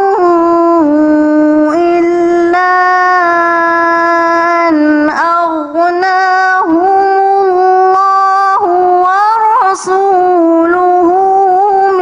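A woman's voice reciting the Quran in the melodic tilawah style, holding long drawn-out notes with ornamented turns and glides, broken only by a few short pauses for breath.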